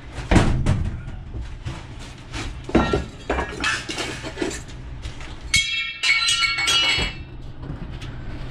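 Scrap metal being handled and thrown out of a van: several knocks and clanks, with a ringing metallic clang lasting about a second and a half around the middle, over a steady low hum.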